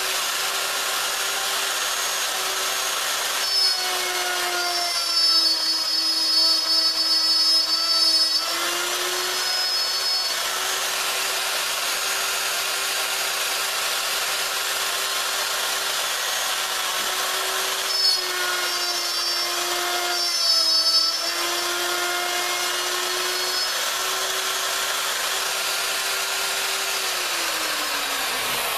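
Plunge router running at full speed, its motor whine dropping slightly in pitch during two louder stretches as the straight bit cuts a mortise in a wooden board. Near the end the router is switched off and its whine falls away as it winds down.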